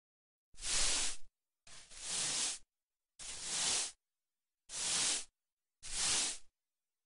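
Push broom sweeping a parquet floor: five brushing strokes of the bristles, each under a second, about a second apart, with silence between them.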